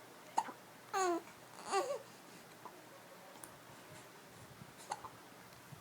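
A baby with the hiccups: a short, sharp hiccup about half a second in and another near the end, with two brief whining, annoyed cries around one and two seconds in.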